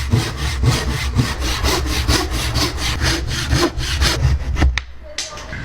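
Hand saw cutting through wood in quick, even back-and-forth strokes, about four or five a second, stopping near the end.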